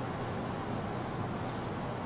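Steady low hum with an even hiss behind it, with no meows or other distinct sounds.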